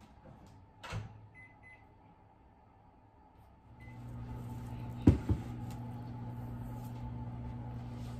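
Microwave oven being set and started: a click about a second in, two short keypad beeps, another beep, then the oven starts running with a steady hum. Two sharp thumps just over a second after it starts are the loudest sound.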